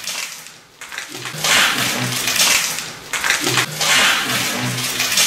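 A hoarse, whispering voice in about three long breathy, hissing bursts, starting about a second in. It is replayed and presented as an unexplained voice.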